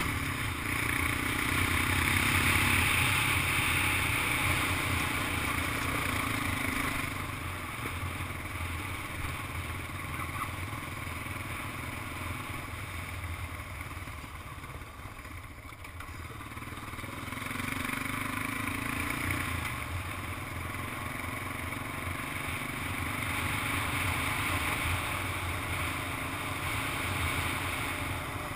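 Honda ATV engine running under way. It is louder over the first several seconds, eases off around the middle, and builds again in the last third.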